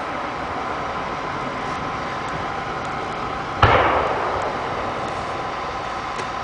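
One firework burst about three and a half seconds in: a sharp boom with a long echoing tail. It sits over a steady hum that carries a few faint tones.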